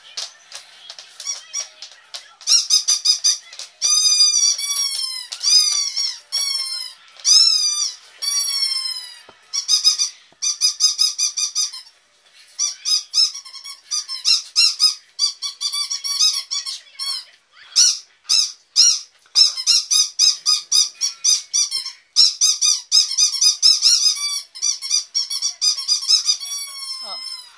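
A rubber squeaker in a dog toy squeaked over and over as it is chewed. At first come long squeaks that rise and fall in pitch, then quick runs of short squeaks, several a second, with brief pauses.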